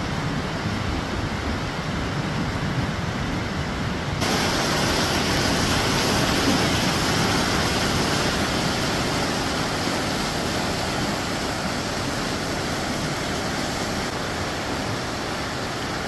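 Rushing whitewater of a fast river pouring over rocks below a waterfall: a steady, dense rush of water that gets louder and brighter about four seconds in.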